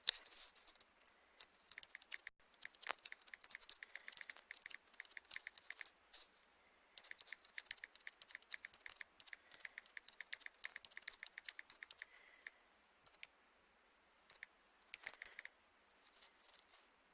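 Faint rapid clicking, several clicks a second, in two long runs with a few single clicks between and after.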